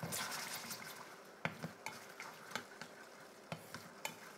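Wooden spatula stirring massaman curry sauce in a stainless steel pan, with scattered light knocks and scrapes against the pan over a faint sizzle.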